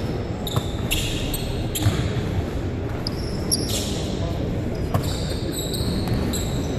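Basketballs bouncing and thudding on a hardwood gym floor in a shooting drill, several sharp thuds at irregular intervals, with short high sneaker squeaks in between, all echoing in a large hall.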